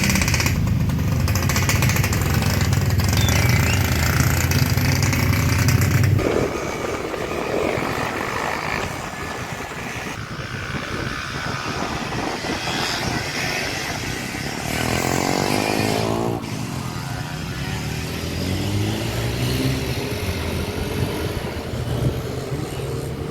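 Motorcycle engine running with a steady low drone that cuts off abruptly about six seconds in; a quieter engine and road noise follow, with a brief rising whine about two-thirds of the way through.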